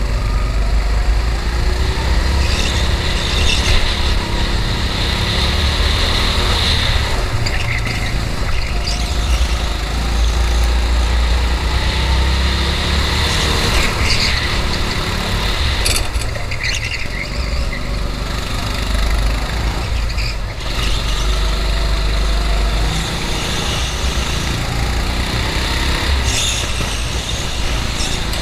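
Go-kart engine running hard, its pitch rising and falling over and over as the kart is driven around the track, with short high-pitched tyre squeals several times.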